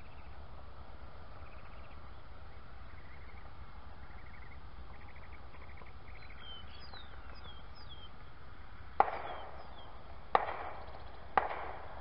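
Three sharp bangs in the last three seconds, each with a short ringing tail. Faint bird chirps come before them, all over a steady low rumble.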